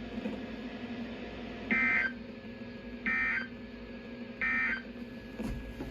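NOAA Weather Radio SAME end-of-message data bursts: three short, identical buzzy digital bursts about a second and a half apart, the signal that the severe thunderstorm watch message has ended. A faint steady hum from the radio runs underneath.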